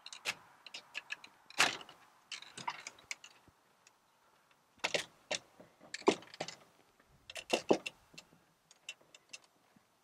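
Canoe hull being set down on a car roof rack and shifted along its crossbars: clusters of light knocks, clicks and scrapes, the loudest about a second and a half in and again between five and eight seconds in.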